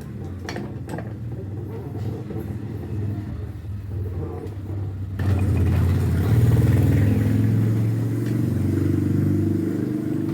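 A motor running with a low steady hum, growing louder about five seconds in.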